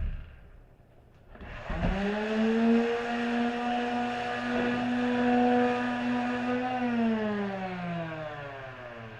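Electric power tool motor spinning up quickly about a second and a half in, running at a steady pitch for about five seconds, then winding down with falling pitch as it coasts to a stop.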